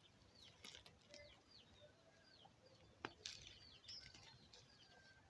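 Small birds chirping faintly: a string of short high chirps that each fall in pitch, with one sharp click about three seconds in.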